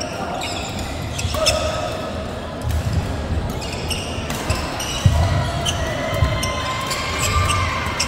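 Busy badminton hall: rackets striking shuttlecocks in sharp, irregular cracks, and court shoes squeaking on the sports floor in several drawn-out squeals.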